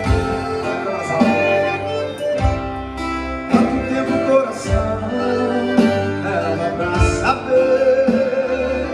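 Music: a song led by guitar, with a low beat thumping about once every second.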